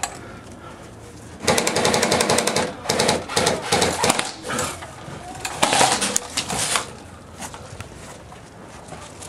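Airsoft electric rifle firing several rapid full-auto bursts, a fast clatter of shots starting about a second and a half in and stopping near seven seconds.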